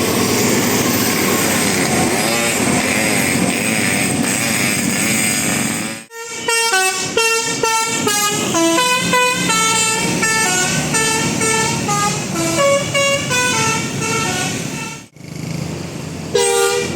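Bus 'telolet' multi-tone air horn playing a tune of quick stepped notes of changing pitch for about nine seconds, after some six seconds of steady engine and street noise. A short blast on a horn follows near the end.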